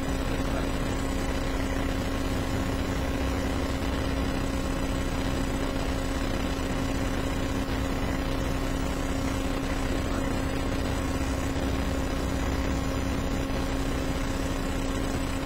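Steady background hum of the courtroom recording: a constant low droning tone over an even hiss, unchanging throughout.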